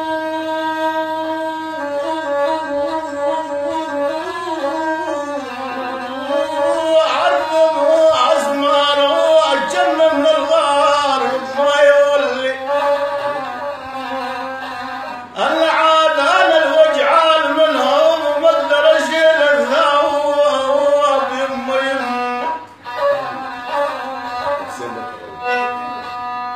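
Violin held upright on the knee and bowed like a rababa, playing an ornamented Arabic atabe melody. The phrase breaks off briefly about 15 seconds in and resumes. After a sharper pause around 22 seconds the playing goes on more quietly with held notes.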